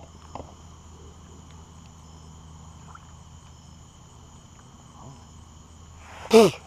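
Insects calling in a steady, unbroken high trill, with a brief loud voice sound near the end.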